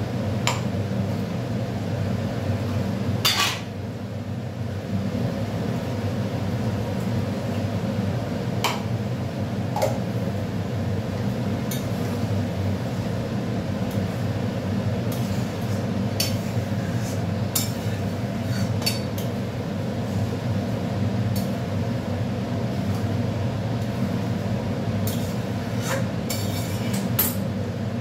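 Metal spatula knocking and scraping against a metal kadai while a thick pea curry is stirred: scattered sharp clinks, the loudest about three seconds in, over a steady low hum.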